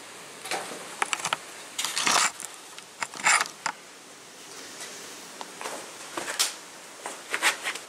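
Intermittent rustling and scraping as dry tinder (grass, birch bark, cardboard, shavings) is handled and moved on a rock ledge. The loudest scrape comes about three seconds in.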